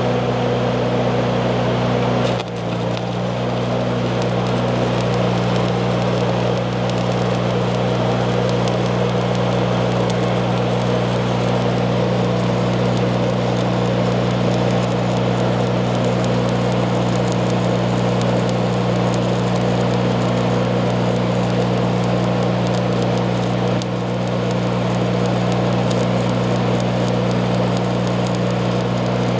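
Stick welding arc crackling steadily as a bead is run on quarter-inch steel plate, with a brief break about two and a half seconds in. A steady low hum runs underneath.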